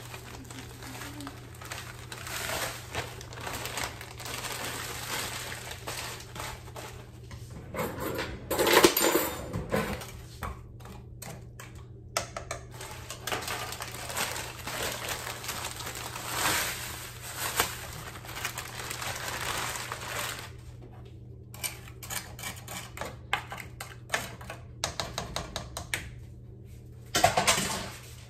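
Plastic bag of frozen broccoli florets crinkling and rustling as the florets are shaken and dropped into a pot, with many small clicks and clatters. The loudest burst comes about nine seconds in, and another loud clatter comes near the end.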